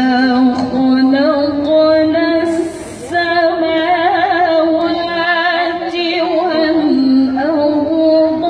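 A woman reciting the Quran in melodic tilawah style, holding long ornamented notes in a high voice, with a short break about three seconds in.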